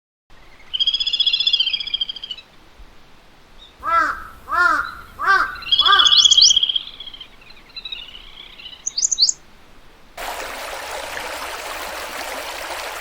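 Songbirds chirping and warbling, with a crow cawing four times in a row a few seconds in. From about ten seconds in, a steady rushing hiss like flowing water takes over.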